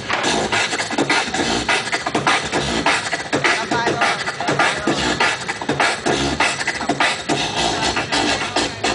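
Beatboxing into a microphone, amplified over a stage PA: a fast, unbroken stream of drum-like mouth percussion, sharp clicks and hisses over low thumps.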